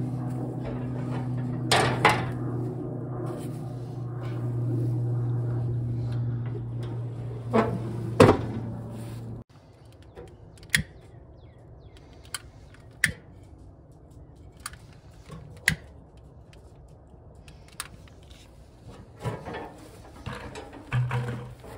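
A steady low hum with two sharp knocks, which cuts off abruptly about nine seconds in. Then scattered sharp clicks and taps as a lighter wand is put to charcoal briquettes in a smoker's firebox, with a few louder metal knocks near the end.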